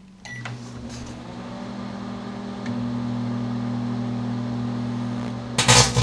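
A GE microwave oven's keypad beeps and the oven starts up, running with a low steady hum. About five and a half seconds in, a sudden loud crackling breaks out as the electrical wire inside begins arcing.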